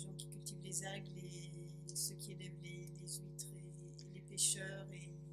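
Faint, indistinct speech of a question asked away from the microphone, over a steady electrical hum from the sound system.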